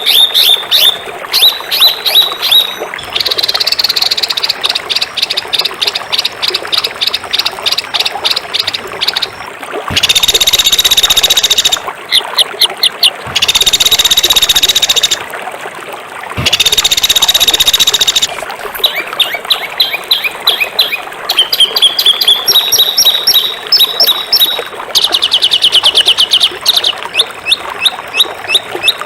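Songbird song: fast rapid-fire trills of sharp repeated notes, broken three times by harsh, dense buzzing phrases about two seconds long. These are the rough, sharp 'tembakan' phrases used as tutor song for cage birds.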